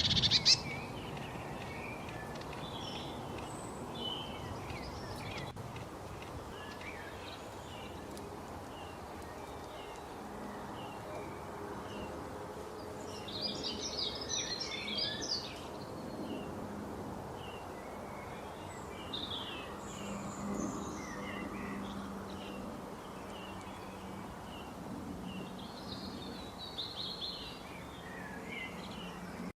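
Several small birds chirping and calling in short notes, with a denser flurry of chirps around the middle, over a steady background hiss.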